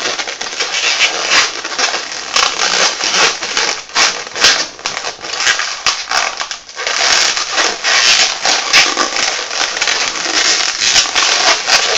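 Latex modelling balloons being twisted, rolled and squeezed by hand close to the microphone. The rubber rubs and squeaks against itself and the fingers in a loud, dense run of squeaks and creaks, with a short lull about halfway through.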